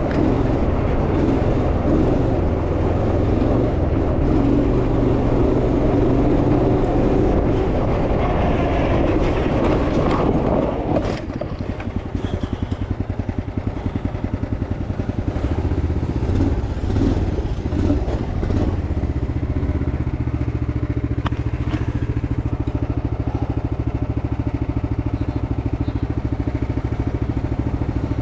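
Small off-road vehicle engine heard on board, running hard under throttle for about eleven seconds, then dropping suddenly to a lower, steadier note with a rapid firing beat and picking up again now and then.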